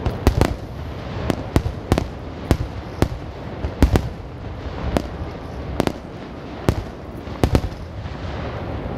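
Aerial fireworks shells bursting in quick, irregular succession: sharp bangs, roughly one or two a second, over a continuous low rumble of booms echoing off the sea cliffs.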